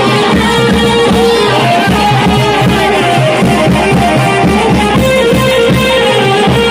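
Loud music with a steady drum beat and melody.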